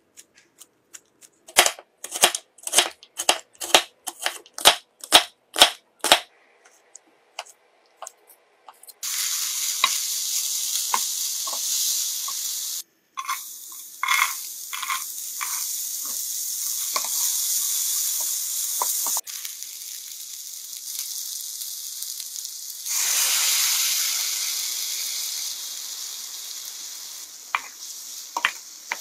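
A series of about a dozen sharp knocks, roughly two a second. Then, from about nine seconds in, minced garlic, diced carrots and potatoes sizzle as they stir-fry in hot oil in a pan, with small clicks from a wooden spatula. The sizzle swells louder for a few seconds about two-thirds of the way through.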